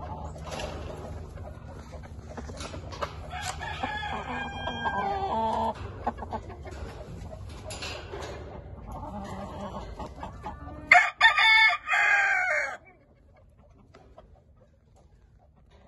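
Gamecock roosters clucking and crowing. The loudest is one crow in several parts about eleven seconds in, with fainter calls earlier.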